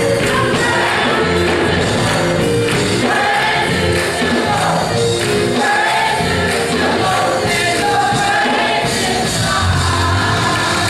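Gospel choir singing.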